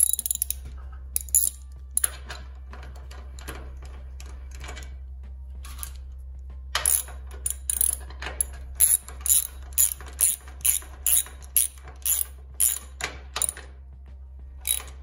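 Socket ratchet clicking as a bolt holding a ground-wire terminal is run down into a steel truck frame. A few scattered clicks come first, then about halfway through a steady run of ratchet strokes, two to three clicks a second.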